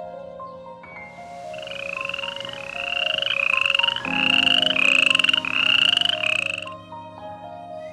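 A frog calling: a run of short, rising, rasping croaks, about two a second, with a quieter gap at the start and near the end. Soft background music plays underneath.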